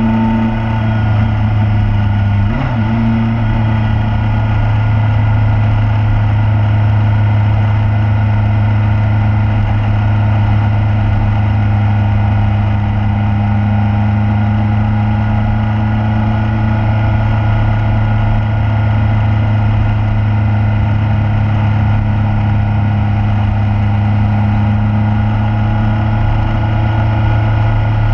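Motorcycle engine running steadily at cruising speed, heard from a camera mounted on the bike. There is one brief change in pitch about two and a half seconds in; otherwise the pitch holds steady.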